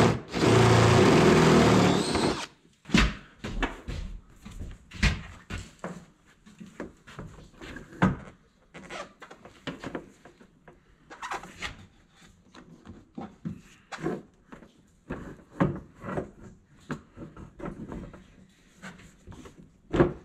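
A loud steady whir runs for about the first two seconds and cuts off sharply. It is followed by scattered, irregular knocks, clicks and rattles of parts and hand tools being handled.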